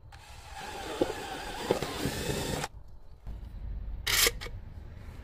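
Cordless drill running as it bores a hole through vinyl siding for about two and a half seconds, stopping abruptly. About four seconds in there is one short, loud clack.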